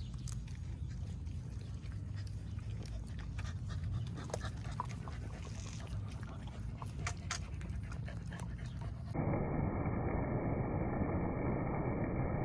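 A dog, plausibly one of the corgis, panting, with soft scattered clicks and a low rumble. About nine seconds in, the sound cuts abruptly to a louder, steady rushing noise.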